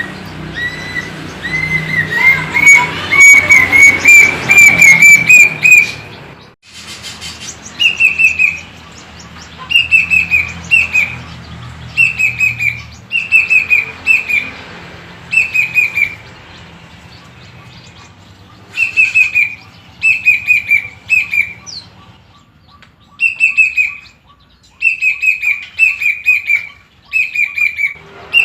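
Plaintive cuckoo (kedasih) singing: first a quickening series of clear whistled notes that climb in pitch over about six seconds, then repeated short phrases of three or four falling whistles, about one phrase every two seconds.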